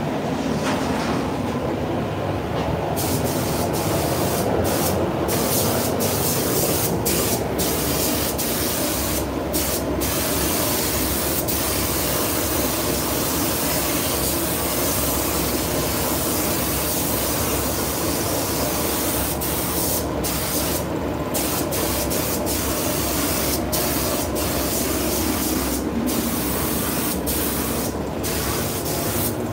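Gravity-feed paint spray gun hissing as compressed air atomises paint onto a car body, the hiss cutting out briefly several times as the trigger is released, over a steady low rumble.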